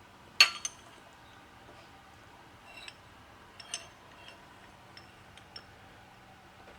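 Small metal parts and tools being handled while the gearbox shaft is set up for pressing: one sharp click about half a second in, a second one just after, then scattered light ticks and clinks.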